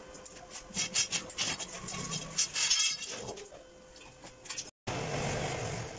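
Light metallic clinks and knocks in a quick, irregular run, as metal gear is handled around a stainless steel tube frame. A little before the end the sound cuts out for a moment and gives way to a steady hiss.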